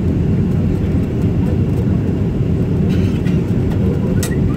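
Steady low rumble of an airliner cabin just after landing, with a faint click about three seconds in and a sharper click near the end.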